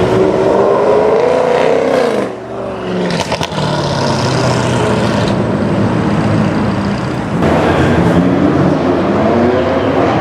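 Audi RS7 Sportback's twin-turbo V8 through a loud aftermarket exhaust, accelerating with a rising note that cuts off sharply about two seconds in, followed by a few crackles and pops. The engine then runs on at a lower, steadier note and climbs again near the end.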